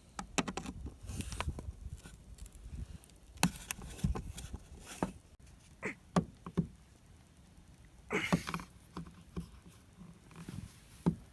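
Irregular clicks and knocks of a Torx screwdriver and pry tool working at a car's plastic fog-light trim, with a longer scrape about eight seconds in, as a tight trim piece resists coming out.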